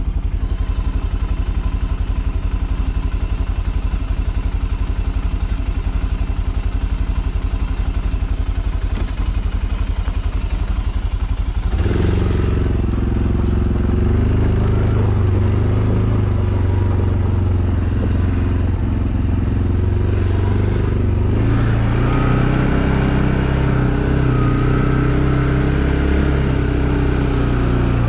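Arctic Cat Alterra 700 ATV engine idling with a steady, fast low pulse. About twelve seconds in, it suddenly picks up and runs louder under throttle, its pitch rising and falling as the ATV rides.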